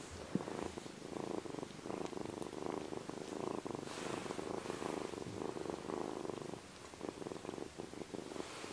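Ragdoll kitten purring loudly, a fast rattling purr that comes in swells, with a brief lull late on.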